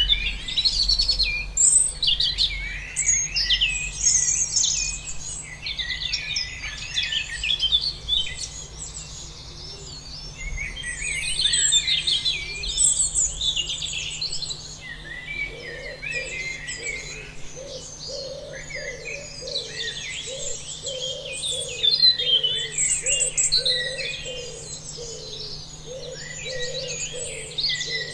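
A chorus of small birds chirping and singing, dense and overlapping. From about halfway in, a lower call repeats a little more than once a second beneath it.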